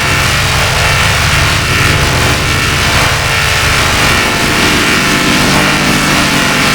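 Robot sound effect: a loud, steady mechanical buzzing hum with a fast low pulse, unchanging throughout.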